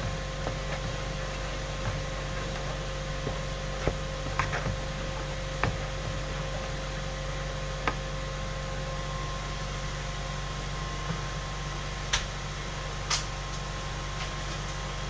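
A steady hum with scattered light knocks and clicks of a wooden spoon stirring barbecue sauce in a plastic mixing bowl, the two sharpest knocks near the end.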